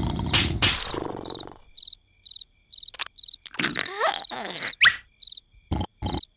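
Cricket chirping, short even chirps about twice a second, the cartoon's cue for an awkward silence. In the middle come a few short gliding squeaks and a quick rising whistle.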